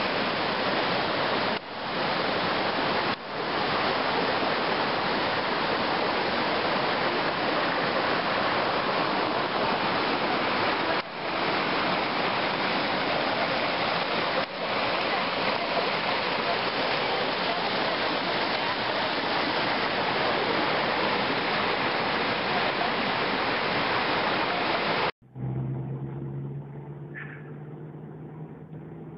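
Steady rush of water flowing among boulders in a rocky stream, with a few brief dips. About 25 seconds in it cuts to the much quieter, low steady hum of a car engine running, heard from inside the cabin.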